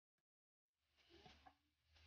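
Near silence. From just under a second in there is a faint hiss with a few soft knocks from stirring ground meat and diced tomatoes with a spatula in a frying pan.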